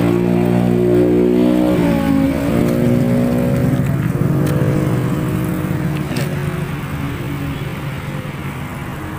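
A motor vehicle's engine running loud and close, with its pitch dipping and rising about two seconds in, then fading away as it moves off.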